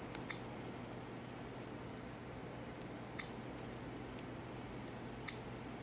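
Three short, sharp clicks, spaced about three and then two seconds apart, from taps on a Sony Xperia Go smartphone's touchscreen, heard over a faint steady hiss.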